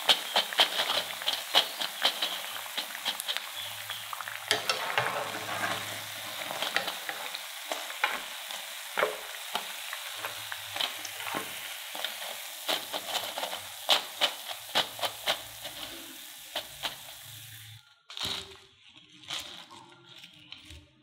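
Hot oil sizzling around potato fritters as they deep-fry, with frequent sharp crackling pops. The sizzle stops suddenly about 18 seconds in, leaving only a few soft knocks.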